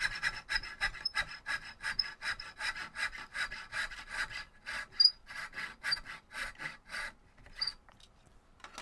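Hand back saw cutting a wooden spoon blank in quick, even rasping strokes of about three to four a second, stopping about seven seconds in.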